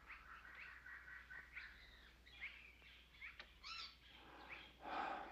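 Faint cartoon jungle ambience of birds twittering: many short, rising chirps. A brief louder rush of noise comes near the end.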